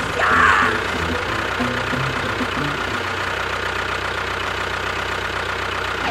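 An engine idling steadily with an even low chugging, briefly louder about half a second in.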